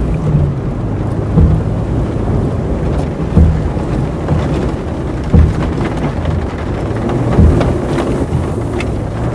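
Cinematic soundtrack of a low, steady rumble, like a car's road noise, with a deep boom evenly every two seconds.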